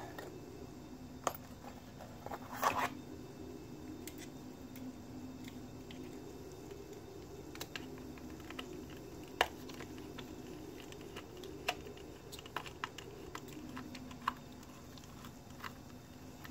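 Small scattered clicks and taps of a hex driver and a screwdriver working the screws out of a plastic RC crawler transmission, over a steady low hum.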